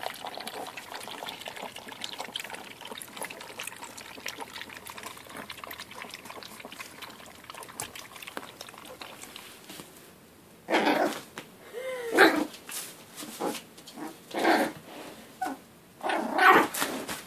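Yorkshire Terrier puppies lapping and smacking at a shared food dish, a dense run of small wet clicks. About ten seconds in, a puppy starts barking in a string of short, high yaps.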